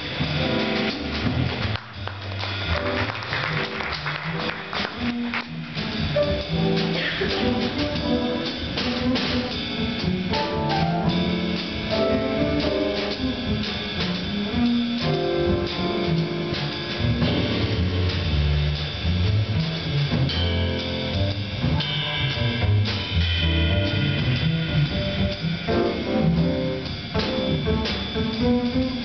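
Small jazz combo playing live: guitar, piano, upright bass and drum kit.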